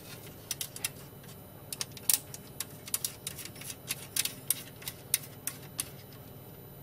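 Irregular light clicks and taps of small metal parts as a circuit board is set onto an aluminium tooling plate and fastened with small thumb-screw standoffs, over a faint steady low hum.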